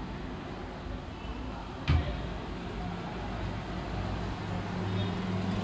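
Masala-coated potato slices shallow-frying in oil in a kadhai, a steady sizzle. There is one sharp click about two seconds in, and a low hum grows a little louder near the end.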